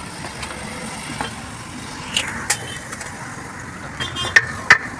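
Steady workshop background noise, then about four seconds in a run of sharp metal-on-metal strikes, about three a second, each with a brief ringing tone.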